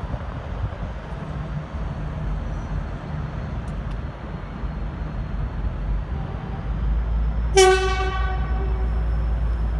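Leslie RS5T horn on a V/Line N class diesel locomotive giving one short toot, about seven and a half seconds in. Under it runs the steady low rumble of the departing locomotive's diesel engine, which grows louder shortly before the toot.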